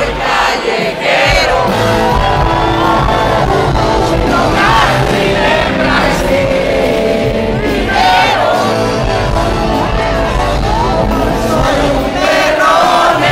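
Live rock band playing with vocals, the crowd singing along and shouting.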